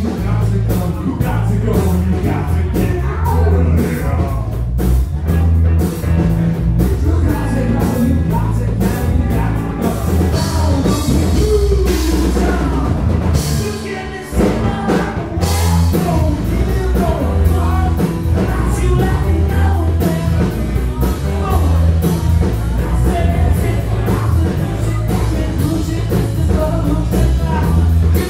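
Live rock band playing loudly: drum kit, bass guitar and electric guitar together. The band drops out briefly about halfway through and comes back in together.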